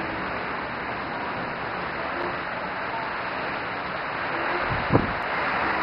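Steady rain and wind in a storm, heard as an even rushing noise, with one dull thump about five seconds in.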